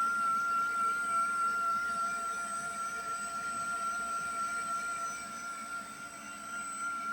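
Kawamoto JF400S well pump motor running with a steady high-pitched whine, an abnormal noise from a motor that otherwise turns.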